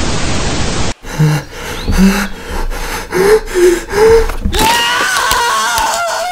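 TV static hiss that cuts off abruptly about a second in, followed by a person's short, gasping breaths. A wavering electronic tone comes in near the end.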